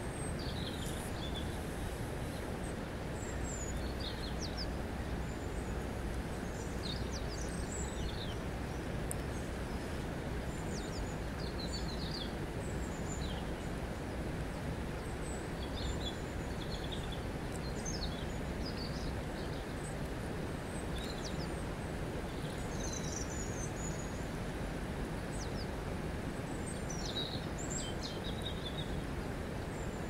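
River water running steadily over a stony bed, with short high bird chirps scattered through it.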